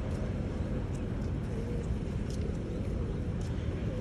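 Steady low outdoor rumble of background noise, with no distinct event standing out.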